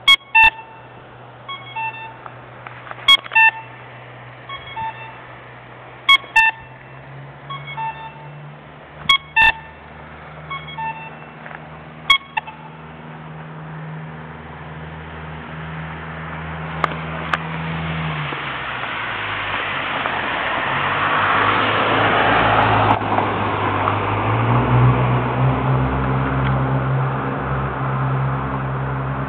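Accessible pedestrian signal's locator beacon, broken and stuck on, beeping on its own: a sharp tick about every three seconds with softer pitched beeps between. Partway through the beeps stop and a passing vehicle builds up and fades.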